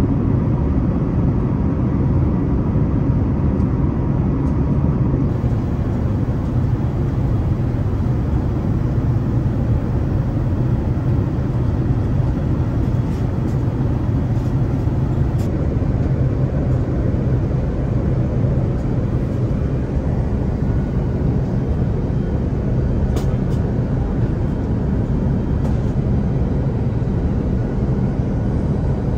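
Steady rumble and rush of an Airbus A380 cabin in cruise flight, heard from inside the upper deck. A few faint clicks sound now and then.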